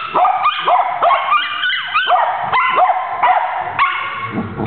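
Pet dogs yipping and howling along to a sung tune: a string of short cries that each rise and fall back in pitch, two or three a second, with a person's voice coming in near the end.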